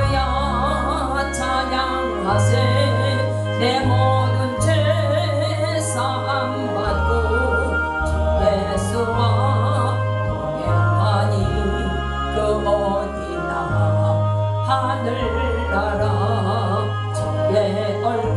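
Gospel hymn music: a band with a steady bass line, occasional cymbal hits and a sung melody.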